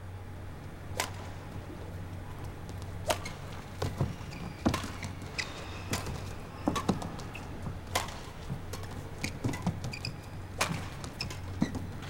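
Badminton rally: sharp racket strikes on the shuttlecock at irregular intervals about a second apart, with short squeaks and thuds of court shoes on the floor and a steady low hum from the arena.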